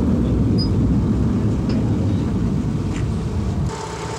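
Steady low rumble of running engines. About three and a half seconds in, it drops in level and gives way to a quieter, steadier hum with a faint held tone.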